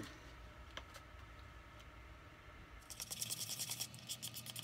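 A small spoon stirring colorant into soap batter in a small cup: after a few faint clicks, rapid, even scraping strokes start about three seconds in.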